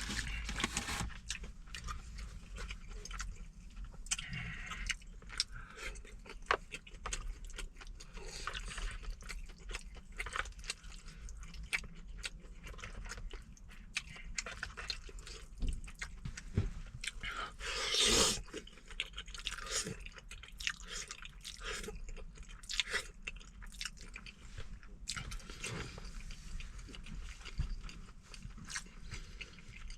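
Close-up mukbang eating sounds: a person chewing a mouthful of braised chicken and rice with wet smacks and small clicks, and one longer, louder noisy sound a little past halfway.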